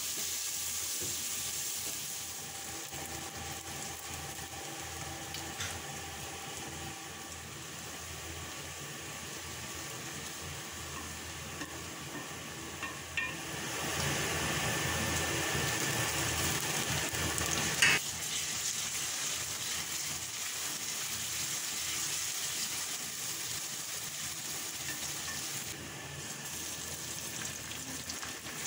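Sliced onions sizzling in hot oil in an aluminium karahi, with a wooden spoon stirring and scraping at first. The sizzle gets louder about halfway through, and a single sharp knock comes a few seconds later.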